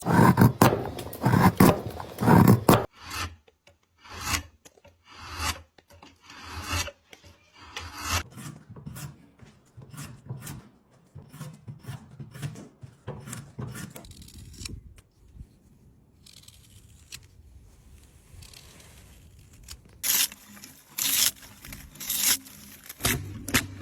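A sharp blade cutting and shaving wood in repeated, irregular strokes. The strokes come thick in the first half, die away to a quiet stretch, then return as a few strong strokes near the end.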